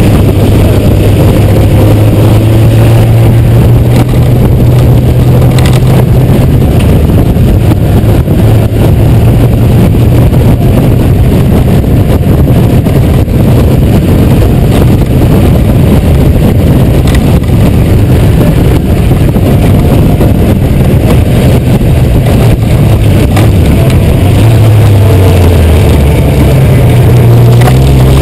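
Honda GoldWing 1500's flat-six engine running at road speed, its note mostly steady, dipping and then rising near the end, under loud wind rush on the microphone.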